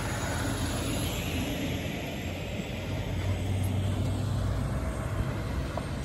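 Diesel semi truck pulling a flatbed trailer as it drives past: a steady low engine rumble with tyre and road noise, swelling a little about three seconds in.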